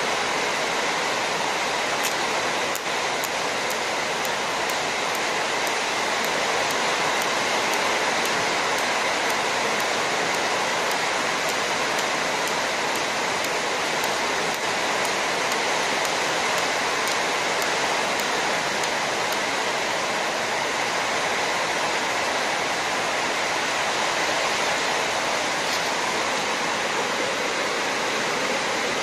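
A steady, even hiss that holds at one level throughout, with no clear change of its own when the welding arc is lit.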